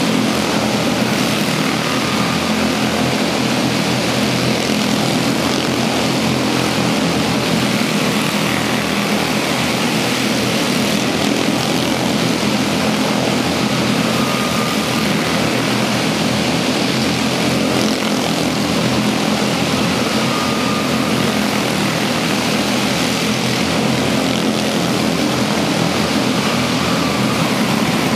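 A pack of quarter midget race cars running at speed around an indoor track, their small single-cylinder engines blending into one steady, unbroken buzzing drone.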